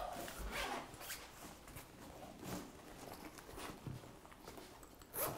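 Soft handling noises: a few footsteps and the rustling and light clicks of a fabric shoulder bag being handled and opened, with a short, louder rustle near the end.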